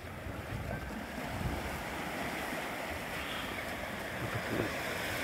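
Surf washing onto a beach, a steady rush of waves, with wind buffeting the microphone.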